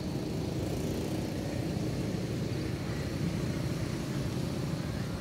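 Steady low rumble of outdoor background noise, even throughout, with a faint thin high tone above it.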